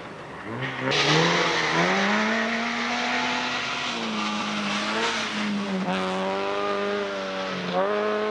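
Rally car engine driven hard: its pitch climbs over the first two seconds, holds high, dips near six seconds and climbs again near the end. A loud hiss of tyre noise runs with it from about a second in to about five and a half seconds.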